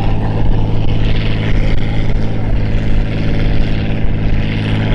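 Oliver farm tractor's engine running hard under full load, dragging a weight-transfer sled; the note holds a steady pitch throughout.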